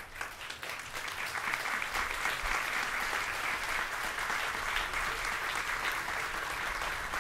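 Audience applauding. The clapping swells over the first couple of seconds and then holds steady.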